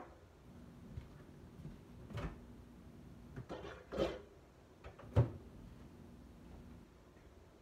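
A series of about five knocks and clunks, like kitchen things being handled and set down, the loudest a sharp knock about five seconds in, over a faint steady hum that stops near the end.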